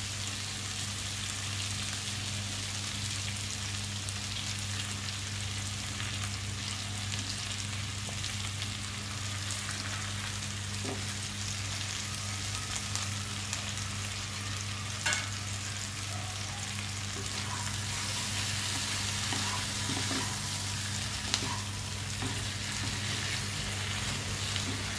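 Chicken pieces with baby corn and spices sizzling steadily in hot oil in a pan, with a few short clicks of a spoon against the pan. A steady low hum runs underneath.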